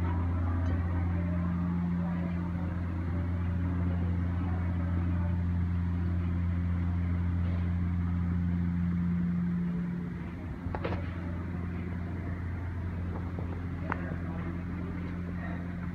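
A steady low hum fills the room under a busy murmur of many voices, easing slightly about ten seconds in. Two sharp clicks come near the end, about three seconds apart.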